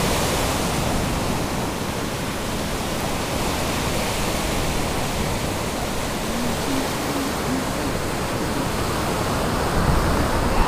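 Ocean surf breaking and washing up the beach, a steady rushing noise with a low rumble underneath.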